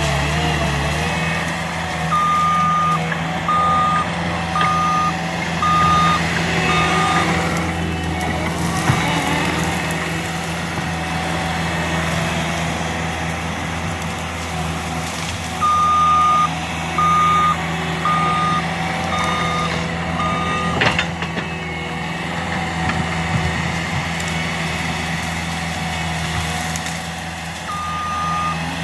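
Skid steer engine running steadily while its reversing alarm beeps in runs of about five beeps, three times, as the machine backs up. There is a single sharp crack about two-thirds of the way through.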